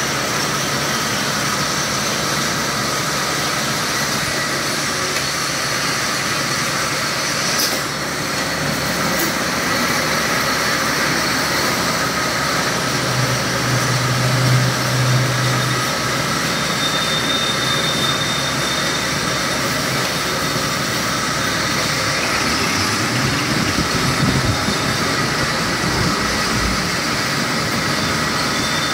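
Multi-spindle automatic bar lathe running steadily while it machines parts, a continuous mechanical running noise with coolant splashing over the tooling.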